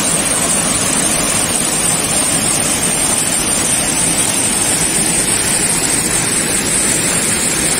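Waterfall, a steady rushing of water cascading over stone.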